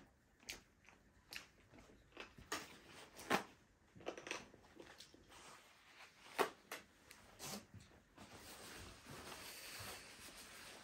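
People eating barbecued chicken: chewing and biting, with scattered short clicks, the two loudest about three and six seconds in, and a steady hiss over the last few seconds.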